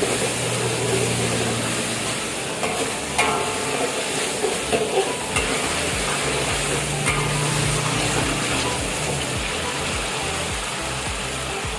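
Food sizzling and frying in a pan as it is stirred, with a couple of sharp metal clinks of a utensil against the pan, about three and seven seconds in.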